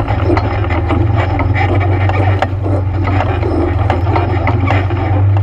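ATV engine running steadily, with frequent short knocks and rattles over it.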